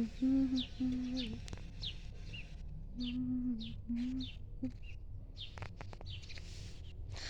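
Small songbird repeating a short chirp that slides downward in pitch, about one to two a second, with a few short, steady, low hummed notes from a person in the first half.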